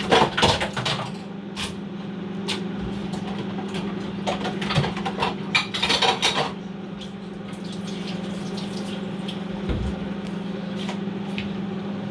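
Cutlery and dishes clinking and scraping in two short flurries, one at the start and a longer one in the middle, over a steady low hum.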